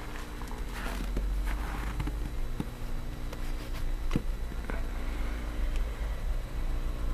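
Snow crunching and a few light knocks as a small glass jar with a metal screw lid is pressed down into snow, over a steady low rumble.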